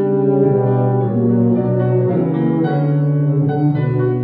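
Two tubas playing a slow duet of held low notes that change pitch every second or so, with piano accompaniment.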